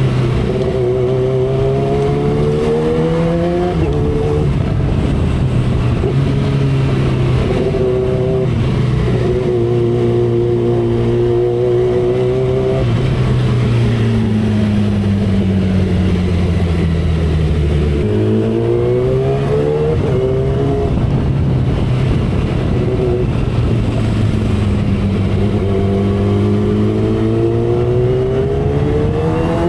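2012 Kawasaki Ninja ZX-10R's inline-four engine at road speed, its pitch climbing under throttle, dropping sharply at gear changes and easing down as it slows, several times over, with steady wind and road noise underneath.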